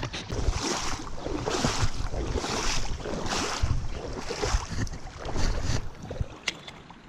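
A person wading through a stream, with a splashing swish of water at each stride, about one a second. It eases off near the end.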